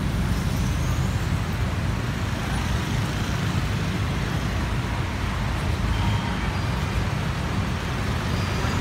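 Busy road traffic: a steady low rumble of car and bus engines and tyres.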